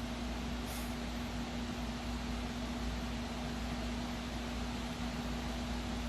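Steady background hiss with a constant low hum, unchanging throughout.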